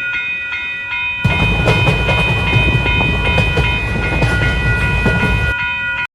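A train passing, with a low rumble and the clatter of wheels on rail joints from about a second in until near the end, over a steady high chord of tones. The sound cuts off abruptly at the end.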